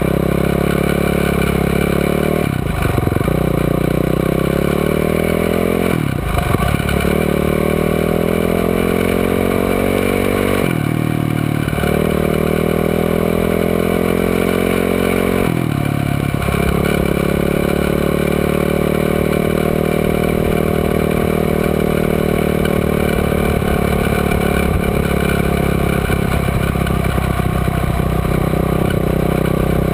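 Quad bike engine heard from on board, accelerating hard through the gears. It shifts up four times in the first sixteen seconds, the pitch climbing after each shift, then it holds a steady cruise.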